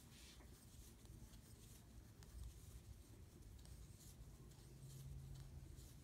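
Faint, soft rustling of yarn drawn through by a crochet hook, stitch after stitch, as a foundation chain is worked; close to near silence.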